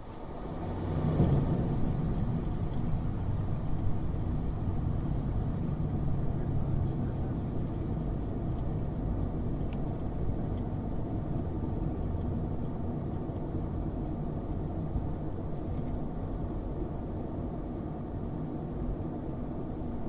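Dash 8 Q400 turboprop's landing rollout heard from the cockpit: a low rumble of engines, propellers and wheels on the runway with a steady low hum. It swells about a second in, just after touchdown, then slowly eases as the aircraft slows.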